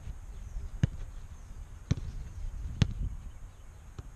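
Soccer ball being struck and caught: three sharp thuds about a second apart, then a fainter one near the end, over a steady low rumble.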